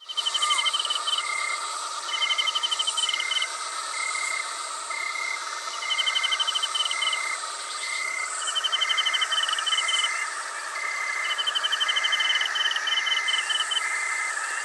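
Night-time chorus of forest insects: rapid pulsed trills come in bursts of a second or two every few seconds, over a steady short chirp repeating more than once a second and a dense buzzing chorus.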